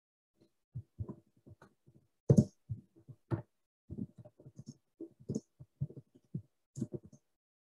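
Scattered soft clicks and knocks, a few a second and irregular, picked up by a webcam microphone on a video call. The loudest pair comes about two and a half seconds in.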